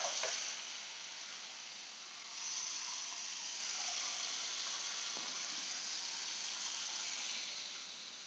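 Two steaks sizzling in butter in a stainless steel frying pan as their second side sears: a steady hiss that swells about two seconds in and eases off near the end.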